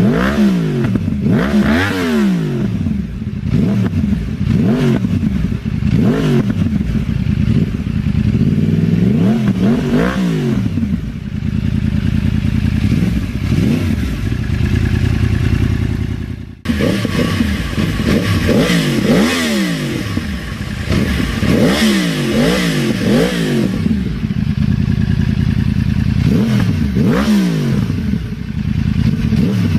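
Yamaha R1 inline-four sportbike engine with an aftermarket exhaust, revved repeatedly in quick blips, the pitch rising and falling about every second or two. About halfway through, the sound cuts suddenly to another bike revving in the same way.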